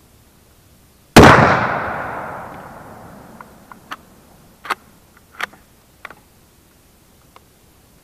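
A single rifle shot about a second in, its report echoing and fading away over about two seconds. It is followed by a series of short metallic clicks as the rifle is handled and reloaded.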